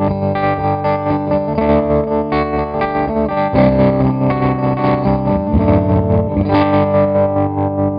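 Electric guitar chords played hard through a CopperSound Loma Prieta tremolo pedal in its standard amplitude-tremolo mode, the volume chopped into quick, even pulses. The tone is gritty and dirty even with the pedal's grit control turned off. The chord changes twice.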